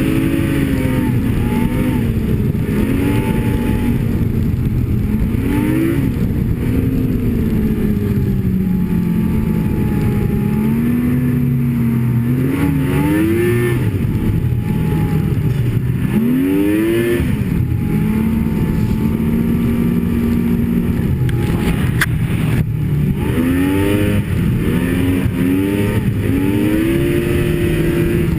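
Snowmobile engine running under way, its pitch rising and falling again and again as the throttle is worked, over a steady rush of track and wind noise. A single sharp click sounds about three-quarters of the way through.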